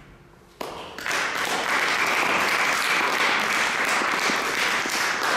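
Audience applauding: clapping breaks out about half a second in, swells within a second, then holds steady and loud.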